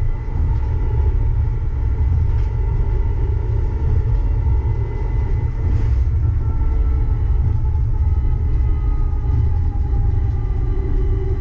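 Uijeongbu light-rail train running, heard from inside the car: a steady low rumble with a faint electric whine that slowly drops in pitch over the second half.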